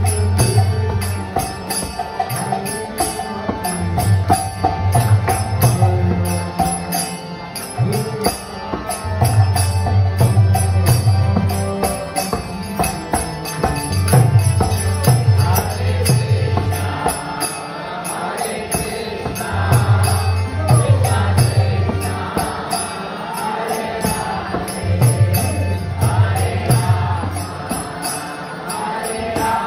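Kirtan: a harmonium and a chanting voice over a steady beat of small hand cymbals, with a low pattern that returns every five seconds or so.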